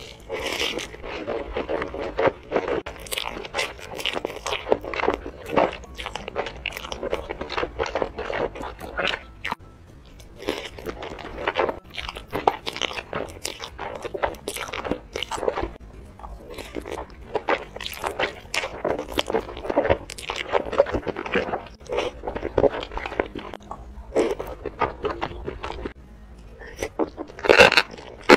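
Close-miked eating sounds: sauced noodles being slurped and sauced enoki mushrooms being chewed, a steady run of quick wet crunches and clicks, louder for a moment near the end.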